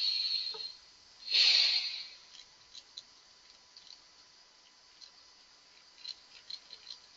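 Two breaths exhaled onto the microphone, one at the start and a louder one about a second later, then faint, irregular clicks.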